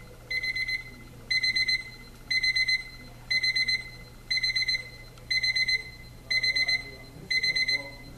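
Equity 33100 electric alarm clock's ascending alarm sounding: half-second bursts of fast electronic beeping at one high pitch, about one burst a second. The first burst is a little softer and the rest are louder.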